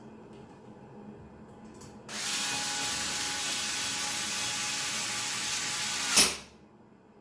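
A small power tool runs with a steady whirring hiss for about four seconds, then stops with one sharp click.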